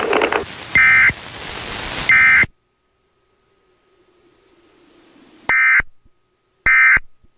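Emergency Alert System end-of-message data bursts: short, shrill digital buzzes that mark the end of the alert. Two bursts sound over a loud hiss, the hiss cuts off sharply, and two more bursts come about a second apart near the end.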